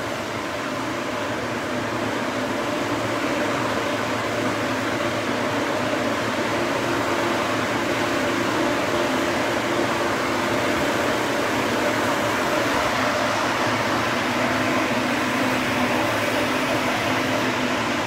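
Large fan running with a steady rush of air, with a faint steady hum beneath it; no revving.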